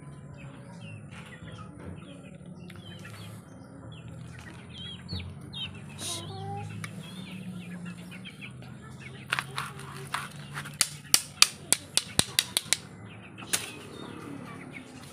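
Many young chicks peeping, with short high chirps throughout over a low steady hum. From about nine seconds in comes a run of about a dozen sharp clicks, the loudest sound, a few to the second.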